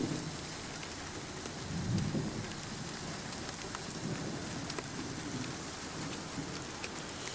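Steady rain falling, with many small drop ticks, under low rumbles of a thunderstorm that swell about two seconds in.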